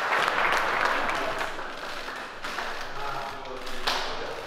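A group of people clapping and applauding, loudest at first and thinning out about halfway through, followed by scattered claps and slaps.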